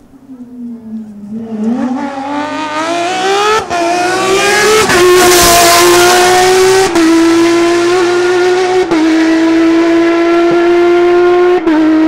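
Porsche 997 GT3 flat-six rally engine at full throttle, coming up and passing close. The revs climb through the gears with quick upshifts and the engine is loudest as it goes by. It then holds a steady high-pitched wail, broken by short dips at each upshift as it pulls away.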